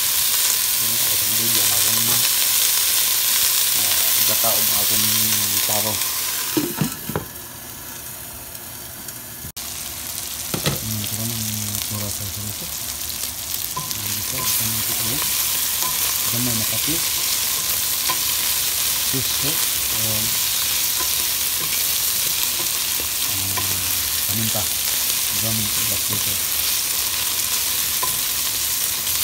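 Chorizo and onions sizzling as they fry in a pot, stirred with a wooden spoon that scrapes and knocks against the pan. The sizzle dies down for a few seconds about seven seconds in, then comes back at full strength.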